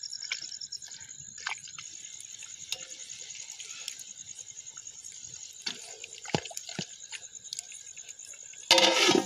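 Chicken gravy simmering in a pot over a wood fire, with scattered bubbling pops and small crackles, over a steady high chirring of crickets. A brief voice comes near the end.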